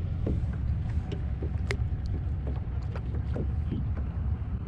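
Low wind rumble on the microphone of a kayak drifting on open water, with faint scattered ticks and knocks.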